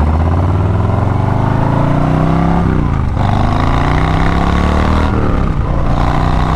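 Harley-Davidson Low Rider S Milwaukee-Eight 114 V-twin, fitted with slip-on mufflers, accelerating through the gears. The pitch climbs, drops at a shift about three seconds in, climbs again, drops again around five seconds, then holds steady at cruising speed.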